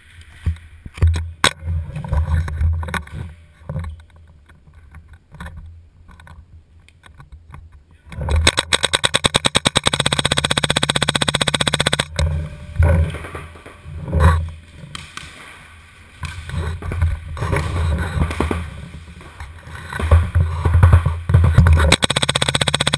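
Proto SLG electronic paintball marker firing a long rapid string of shots near the middle, lasting about four seconds, and another rapid burst near the end. In between there are low rumbling handling and movement knocks on the gun-mounted camera.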